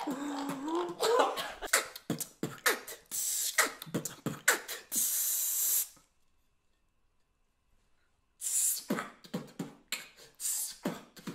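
Beatboxing: rapid mouth clicks, pops and hisses, with a long hiss about five seconds in. The sound then drops out completely for a couple of seconds before the beatboxing starts again.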